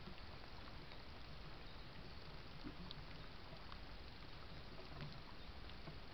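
Steady low hiss with a few faint, scattered ticks.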